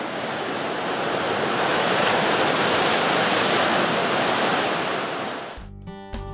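Gale-driven lake waves surging and breaking over a flooded dock and shoreline, a steady rushing noise with wind buffeting the microphone. Near the end it gives way to strummed acoustic guitar music.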